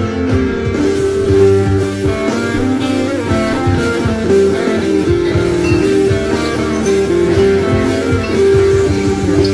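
Background music led by plucked guitar, with sustained notes at a steady level.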